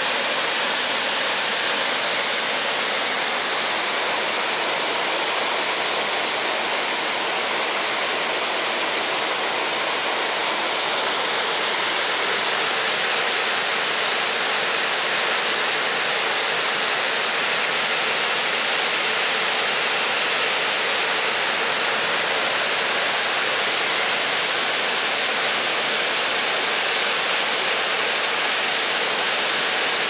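Waterfall pouring down rock faces: a steady, unbroken rush of falling water.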